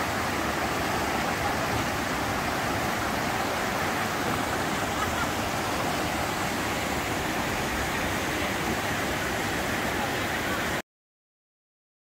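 Water rushing steadily over the shallow rock ledges and small cascades of a waterfall. The sound cuts off suddenly near the end, leaving silence.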